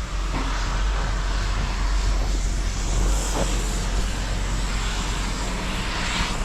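A vehicle engine running steadily, with a constant low rumble and noise, as the vehicle moves along.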